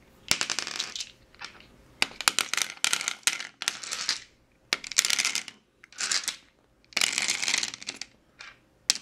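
Plastic D20 dice clattering as they are tipped into a lattice-sided wooden dice box on a ceramic tile surface: several bursts of rattling with short pauses between.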